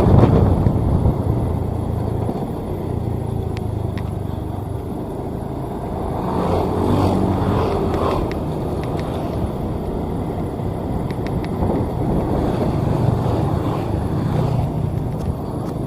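Sakai asphalt paver's diesel engine running steadily as the machine travels along the road, with a swell in the engine sound about six to eight seconds in.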